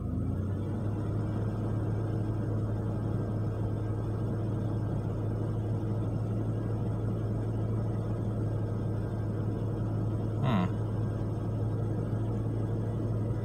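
A 1993 Ford Explorer's 4.0 L OHV V6 idling high and steady just after a rough cold start, during the EEC-IV key-on, engine-running self-test. A brief chirp-like sound about ten seconds in.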